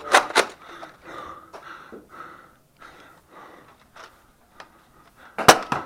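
Sharp snapping shots from Nerf Rival Apollo foam-ball blasters: two quick cracks right at the start and two more close together near the end, with faint rustling between.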